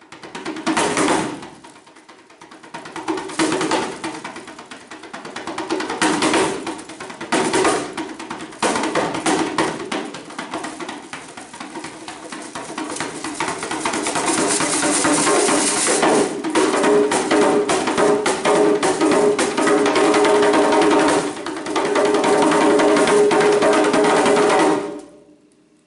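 Solo djembe played with bare hands: separate strikes at first, then a fast, dense run of strokes that grows louder and cuts off suddenly on the final stroke near the end, closing the piece.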